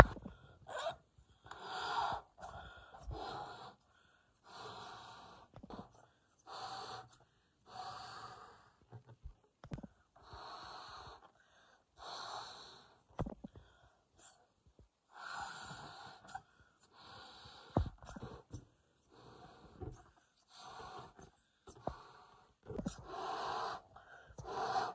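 Latex party balloons being blown up by mouth: a long series of forceful breaths into the balloon, each lasting about half a second to a second, with short pauses between them and a few sharp clicks.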